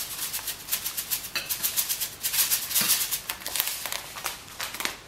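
Sesame seeds rattling in a plastic bag as it is shaken rapidly over a bowl of food, sprinkling the seeds out; the shaking eases off near the end.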